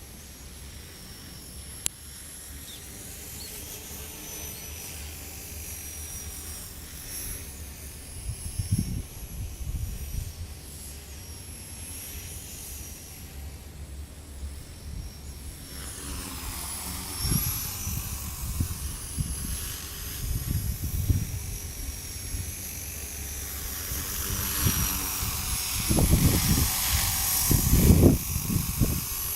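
Align T-REX 250 electric RC helicopter in flight: a steady high whine from its motor and rotor that grows louder about halfway through. Gusts of strong wind rumble on the microphone in bursts, loudest near the end.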